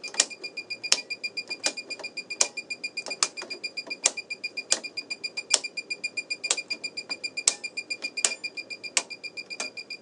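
Handheld circuit breaker finder receiver chirping as it is passed over the breakers to find the one carrying the transmitter's signal: a fast series of high-pitched beeps, several a second.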